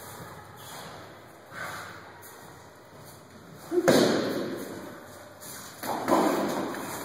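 Gloved punches landing in a boxing sparring session: a soft thud about a second and a half in, then two louder, heavier thuds about four and six seconds in, each followed by a ringing echo in a large hall.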